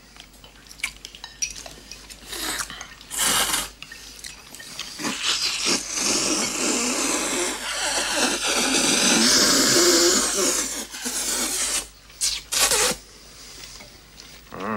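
Noodles being slurped loudly from a bowl: a couple of short slurps, then one long slurp lasting several seconds, and two more short slurps near the end.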